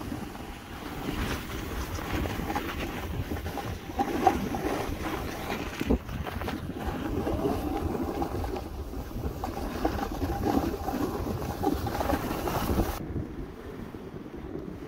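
Snowboard sliding and scraping over rough, chopped-up snow, with wind rushing over the microphone, and scattered scrapes and knocks as the edge catches the bumps. The hiss drops away suddenly near the end.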